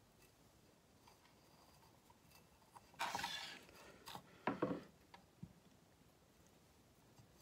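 Fingers working coarse granular bonsai substrate around a tree's roots in a small ceramic pot, giving a few short gritty rustles and scrapes. The longest comes about three seconds in, with shorter ones a second or two later.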